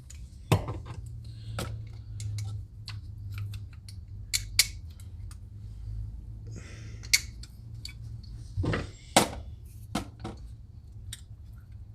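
Small metal carburetor parts and screws clicking and clinking as they are handled and fitted together by hand, in scattered irregular taps, over a steady low hum.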